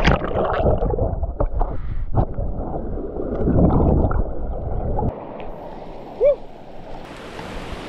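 Rushing mountain stream heard through an action camera held underwater: a muffled churning roar of water and bubbles with the treble cut away. It drops off suddenly about five seconds in. A brief squeak follows a second later, and the open stream's hiss comes back near the end as the camera clears the water.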